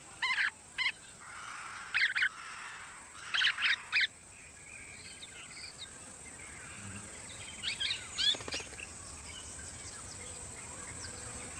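Golden-shouldered parrots giving short chirping calls in quick clusters: several bursts in the first four seconds and another group around eight seconds in, over a steady faint high hiss.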